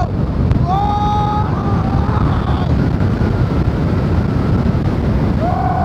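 Helicopter flight noise: a loud, steady low rumble with heavy wind buffeting the microphone. High-pitched whoops of excitement cut through it about a second in and again near the end.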